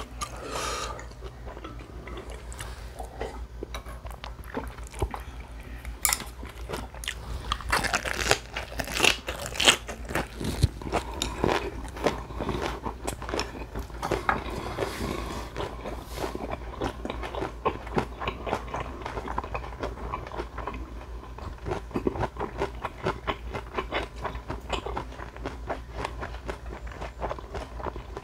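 Close-up chewing of a raw napa cabbage leaf wrap (ssam): a dense, continuous run of crisp crunches, loudest between about six and ten seconds in.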